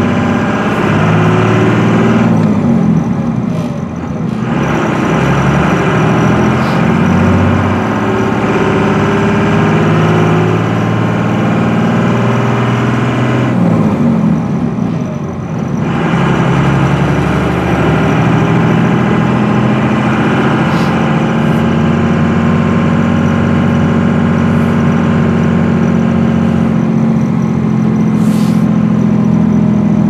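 Dodge Ram's 24-valve 5.9 L Cummins inline-six turbo diesel, heard from inside the cab, pulling a roughly 12,000 lb trailer load as the truck accelerates through the gears of its manual gearbox. The engine note drops twice for gear changes, about 3 seconds in and about 14 seconds in, then climbs again.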